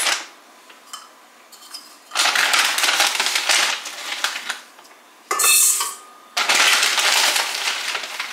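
Dry rolled oats poured into a stainless-steel mixing bowl: two rattling, hissing pours of about two seconds each, with a brief sharper sound between them.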